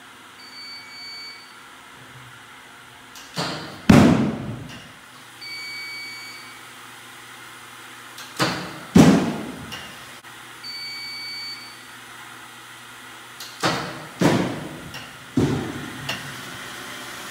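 Sports Tutor HomePlate Triple three-wheel pitching machine delivering balls at intervals, set to 75 mph: a short high tone, then a few seconds later a sharp knock as a ball is fired and a louder smack about half a second after it as the ball lands. The pitch repeats about every five seconds, with more knocks near the end, over the low steady hum of the running machine.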